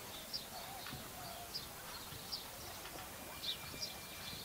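Small birds chirping, short high chirps every second or so, over faint distant voices.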